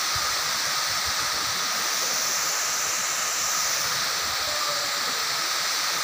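Waterfall: falling water making a steady, unbroken hiss.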